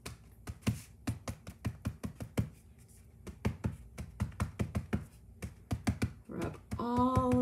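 VersaMark ink pad being dabbed repeatedly onto cardstock, a run of quick, irregular light taps that stops shortly before the end.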